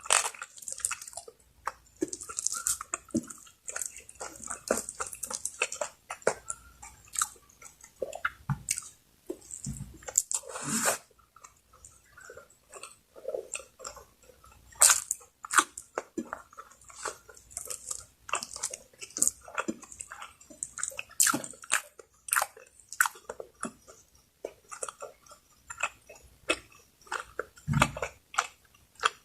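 Close-up eating of spicy Bicol Express: steady chewing with irregular wet smacks and clicks from the mouth.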